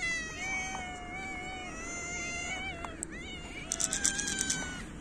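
Hungry stray cat meowing: two long drawn-out meows, the first lasting nearly three seconds, the second higher-pitched. Snow crunches under footsteps near the end.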